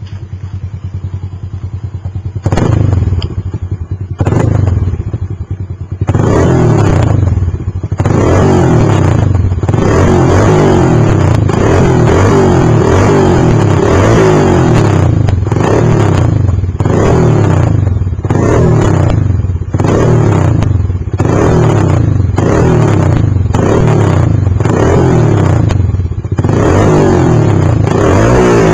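Honda Biz 125's single-cylinder four-stroke engine breathing through an aluminium aftermarket 'roncar' exhaust. It idles, is blipped twice, then is revved up and dropped back over and over, about once every second or so.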